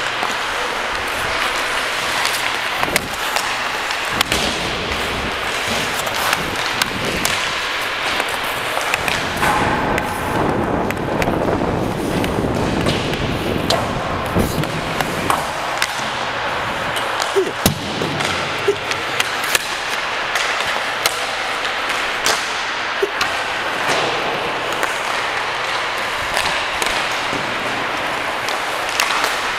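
Hockey pucks and sticks knocking and thudding against the boards at irregular intervals, with an occasional sharp ping, over the steady din of an ice rink.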